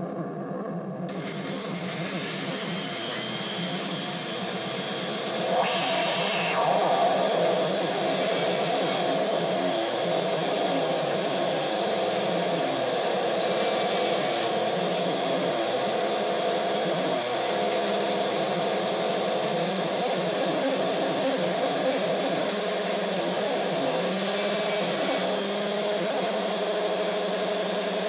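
Javanese Modular DIY modular synthesizer putting out a dense, noisy drone with several wavering tones that shift as its knobs are turned. It grows louder and fuller about six seconds in.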